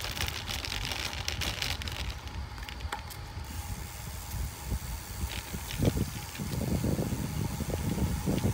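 Bicycle rolling along a paved path: tyre rumble under wind buffeting the microphone, with the low wind noise growing stronger about six seconds in.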